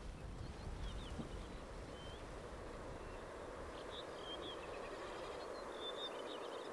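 Faint, steady wind and sea noise with a low rumble that eases off after a few seconds, and a few short, high bird chirps scattered through it.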